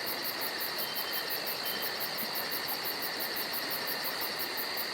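Insects chirping steadily outdoors: a fast, even, high-pitched pulsing over a continuous high trill.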